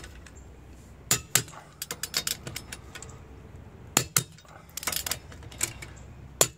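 Lug nuts being tightened with a torque wrench: sharp metallic clicks and clinks of the wrench and socket at irregular intervals, bunched together about four to five seconds in.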